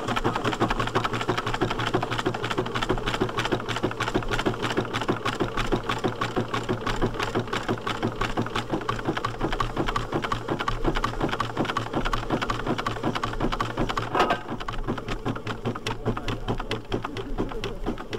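1910 Davey Paxman agricultural steam traction engine running at a quick, even beat, with one sharp clank about fourteen seconds in.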